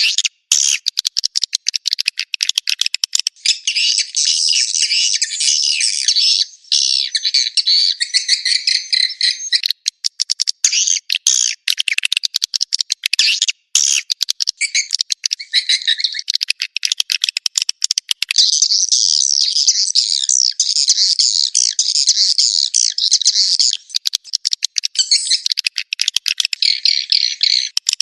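Swiftlet call track: edible-nest swiftlets twittering in a dense, high, continuous chorus, alternating with stretches of rapid clicking, the sound used to lure swiftlets into a nesting house. It is thin and high, with no low end.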